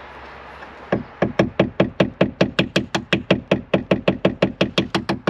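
Claw hammer tapping rapidly on the end of a screwdriver's plastic handle, about five even taps a second, starting about a second in. The tapping drives the screwdriver into a stuck screw whose head is starting to round, to break it free.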